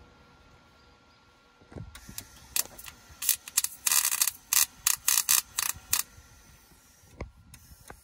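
Electric arc welder laying short tack welds on a steel bar: about a dozen brief bursts of crackling, sizzling arc in quick succession, the longest about half a second near the middle, with gaps between.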